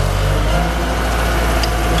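Diesel engine of a 2011 Terex PT70 compact track loader running steadily. About half a second in, the low drone thins and a higher steady whine joins in.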